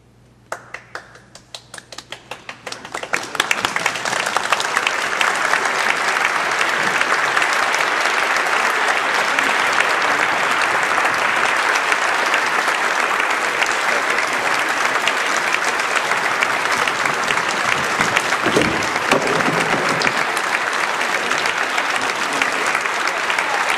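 Concert audience applauding after an orchestral piece ends: a few scattered claps about half a second in, swelling within about three seconds into full, steady applause.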